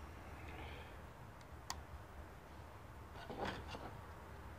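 Faint handling noises of small carburetor parts and a hand tool on a tabletop: a single sharp metallic click about a second and a half in, then a short cluster of clicks and rustling about three and a half seconds in.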